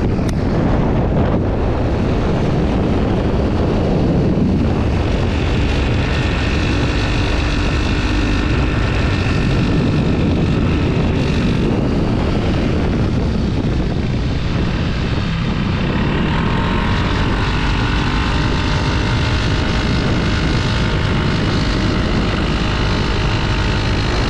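Motorcycle on the move at cruising speed: steady wind buffeting on the microphone over the engine's even drone, with a faint steady whine coming through higher up after a few seconds.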